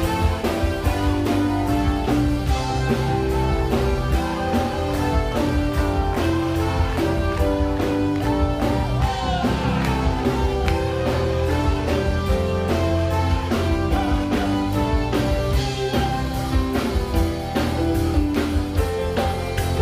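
Live band playing amplified music with drums, bass guitar and keyboard over a steady beat.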